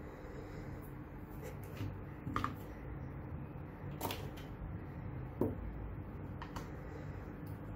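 Small hard-plastic clicks and taps as Nendoroid figure parts and a clear plastic display stand are handled and snapped together, a few sharper clicks scattered through.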